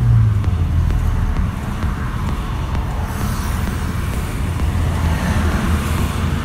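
Steady low diesel engine rumble of a moving 4-ton truck with tyre and road noise, heard from its cab; the road noise grows a little louder from about two seconds in.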